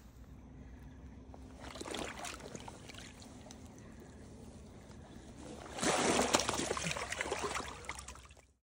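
Water splashing and sloshing, loudest for about two seconds from just before six seconds in, with a smaller splash about two seconds in, as a salmon is lowered back into the river and released.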